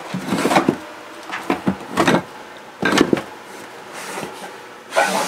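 Batteries' plastic cases sliding and knocking against the plywood and wooden battery bay as they are pushed into place, in several separate short scrapes and bumps.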